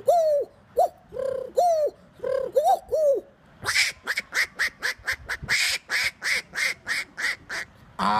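A man imitating animal calls with his voice: first a series of short pitched calls, each rising then dropping, then about three and a half seconds in he switches to a fast run of breathy, rasping calls, about three a second.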